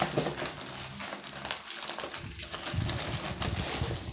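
Brown kraft paper and plastic bubble wrap rustling and crinkling in a steady run of small crackles as a parcel is torn open by hand and the wrapped bundle is pulled out.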